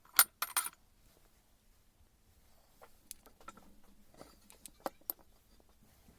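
Small metal parts clinking together at the start, then a few scattered light clicks and taps, as of parts and tools being handled on a workbench.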